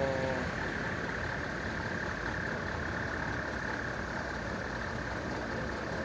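Heavy road traffic: the engines of trucks and a coach running and idling as they move off slowly through a junction, a steady rumble with no sudden events.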